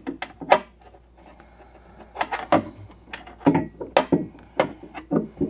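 Irregular sharp knocks and clicks with some rubbing: the door check stop and a hand knocking and scraping inside a Jeep XJ door as the part is fished into place.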